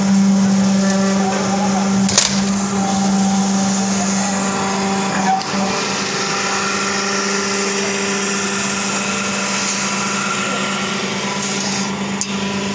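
Hydraulic sheet-shearing machine's pump motor running with a steady hum and whine, and a sharp click about two seconds in.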